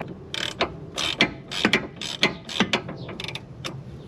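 Hand ratchet wrench clicking through short, uneven strokes, about three a second, as a nut on a front sway bar end link is run down.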